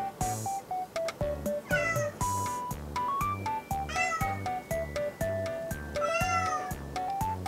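A domestic cat meowing three times, each a short bending call, the last one longer, over light background music with a steady beat.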